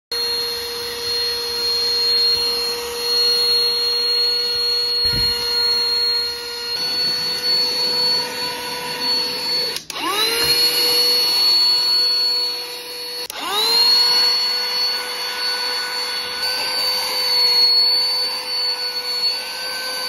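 SIRUITON cordless handheld vacuum's motor running with a steady high whine. It stops twice, and each time the pitch slides quickly back up as the motor spins up again.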